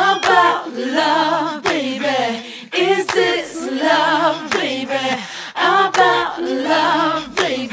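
Several voices singing layered harmonies with little instrumental backing, the held notes wavering with vibrato.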